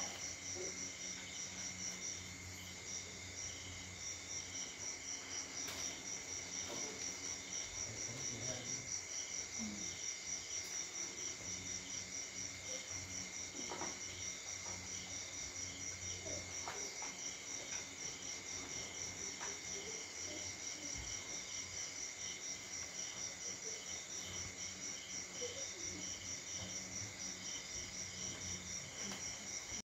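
Crickets chirping in a steady, rapidly pulsing high trill, with a second, steadier insect tone beneath it and a few faint knocks.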